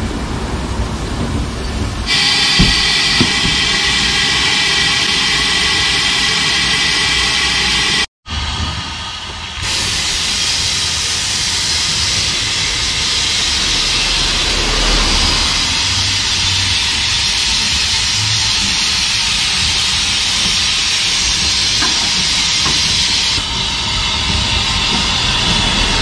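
Narrow-gauge George England tank engine giving off a steady hiss of steam, with a sudden break about 8 seconds in. After the break, the engine hisses steam from low at its front as it pulls its train slowly along.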